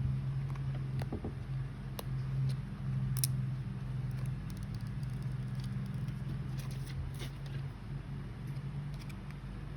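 Scattered light clicks and taps, about four in all, over a steady low hum.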